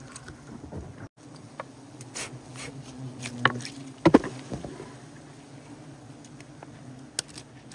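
Wild honeybees buzzing in a steady swarm hum, with several sharp clicks and knocks over it, the loudest about four seconds in.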